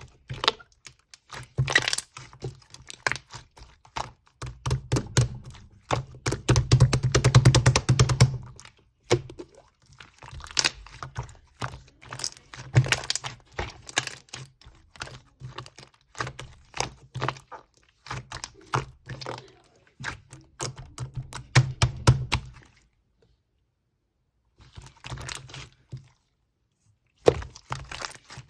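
Clear slime being squished and stretched by hand: rapid sticky clicks and small air-bubble pops, thickest about seven seconds in, with two brief pauses near the end.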